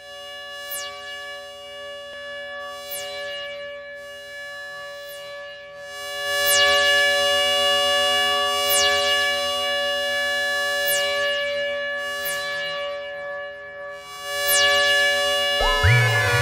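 Eurorack modular synthesizer music: a held drone chord with a high falling sweep about once a second, louder from about six seconds in. Near the end a deep bass and quick stepped rising tones join in.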